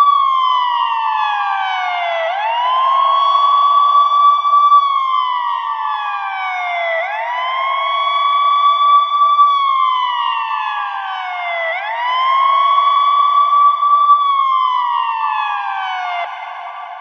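Ambulance siren sounding a slow wail: each cycle climbs quickly, holds at its top pitch, then slides slowly down, repeating about every four and a half seconds. It fades near the end.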